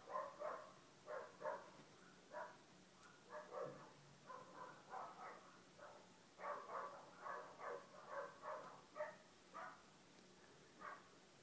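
Faint, short pitched animal calls repeated in irregular bursts, one or two a second, like distant barking.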